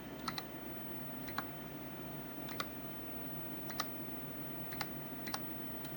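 Single keystrokes on a computer keyboard, about one click a second, some in quick pairs, over the steady hum of the computer's fans.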